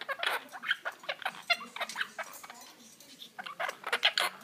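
Quaker parrots (monk parakeets) chattering in quick runs of short squawky calls, with a brief lull just past the middle and more calls near the end.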